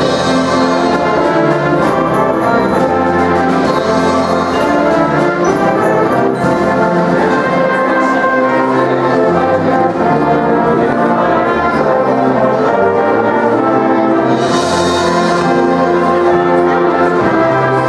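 High school symphonic band playing Christmas music, the brass carrying loud sustained chords over the full winds. A bright high shimmer comes in twice near the end.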